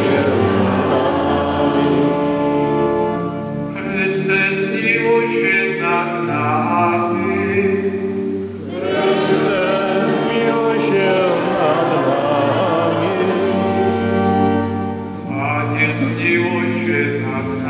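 Church congregation singing a sung part of the Mass with organ accompaniment, in phrases of several seconds with short breaks between them.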